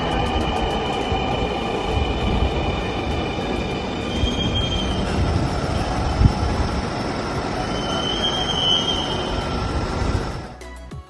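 Dhaka Metro Rail electric train running on its track: a loud rumble with an electric motor whine that falls in pitch at first, and two brief high wheel squeals. The sound cuts off suddenly near the end.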